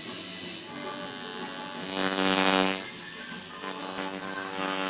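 Electric tattoo machine buzzing steadily as it needles skin. It drops softer about a second in and comes back louder about two seconds in.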